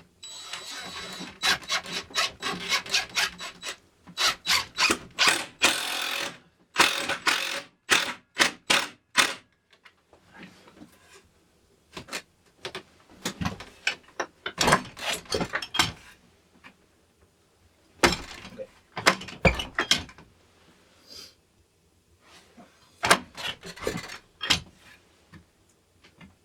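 Wooden door with a stick handle being worked against its frame: a run of wooden knocks, clicks and scrapes in bursts, with short pauses between them.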